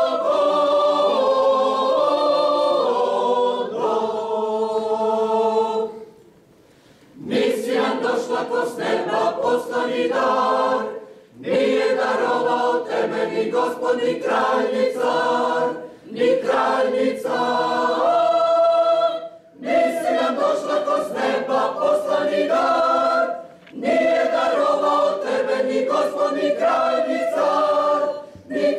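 A choir singing in parts, in phrases separated by short breaths, with one longer pause about six seconds in.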